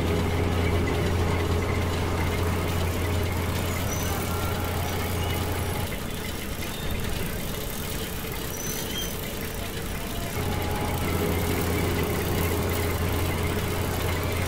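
Animated HO-scale crawler crane running with a steady low engine-like hum. The hum drops away for a few seconds in the middle and then resumes, as the crane's controller pauses it at random along its path.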